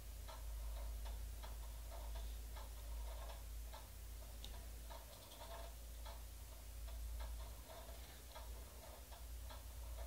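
Faint, regular ticking, about two ticks a second, over a low steady hum.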